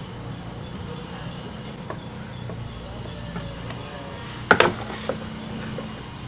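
Haier washing machine's newly replaced motor running with a steady low hum, the machine working normally. A single sharp knock about four and a half seconds in.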